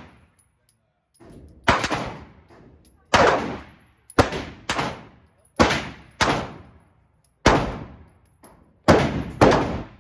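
Gunshots at a shooting range: about nine single shots at an uneven pace, some in quick pairs, each ringing out in a long echoing tail.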